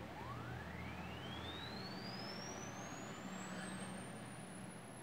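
A sine-wave test tone sweeping upward in pitch from a low tone to a high whistle, climbing fast at first and then more slowly. This is a frequency sweep from the audio test bench, used to measure an amplifier. A faint low hum runs underneath.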